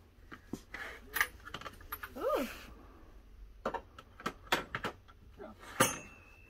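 Small hardware parts clicking and clinking as they are handled in, and dropped back into, a cabinet of small parts drawers: a string of sharp separate clicks. About two seconds in there is a short rising-then-falling squeak.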